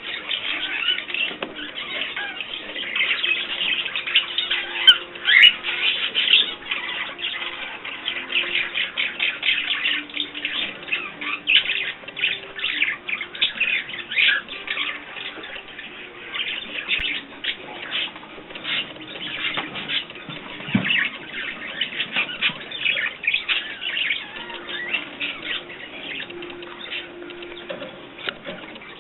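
Small pet birds chirping continuously, a dense stream of short, quick high notes from several birds at once.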